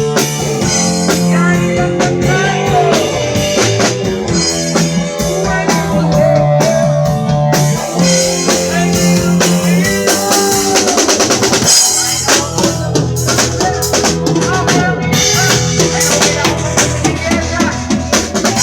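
Live band playing an instrumental passage: a full drum kit with kick, snare and cymbals keeping a steady beat under held bass notes and other band instruments.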